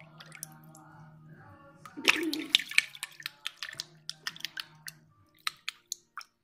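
Shallow water sloshing and splashing as a hand lets go of a small koi, about two seconds in, followed by a quick run of sharp drips and small splashes, several a second.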